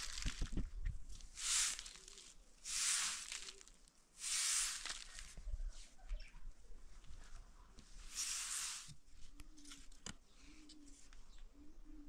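Straw broom sweeping a concrete floor: brushy swishes, one stroke about every second and a half, with a pause and one last stroke about two-thirds of the way in.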